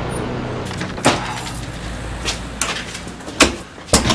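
Steady traffic rumble for about the first second. Then a run of sharp clicks and knocks, a key working a door lock and the door being opened.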